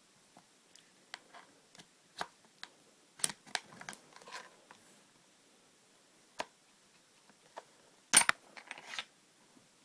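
Scattered sharp clicks and taps of metal and plastic as the stock pin of a G&G MP5A4 airsoft gun is worked out with a pin-pushing tool, with a louder cluster of knocks about eight seconds in.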